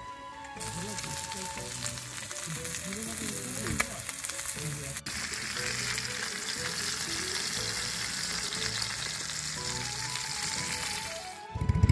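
A thick slab of meat sizzling as it fries in oil in a small stainless steel pan on a camp stove, with background music. Right at the end a loud engine cuts in suddenly.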